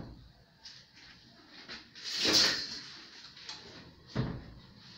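Handling and movement noises from work at the base of a free-standing bath mixer: a short scraping rustle about two seconds in, a low thump a little after four seconds, and a few faint clicks.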